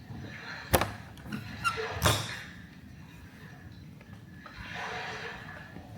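Desk handling sounds: two sharp knocks a little over a second apart with a few lighter ticks, then a soft rushing swell near the end.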